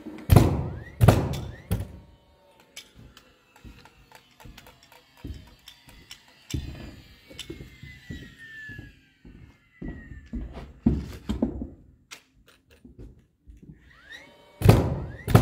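DeWalt cordless framing nailer driving nails through plywood subfloor into the joists: a few sharp shots near the start, lighter scattered knocks, a cluster of shots a little past ten seconds in and a quick run of shots at the end. A faint whine rises and falls between the shots.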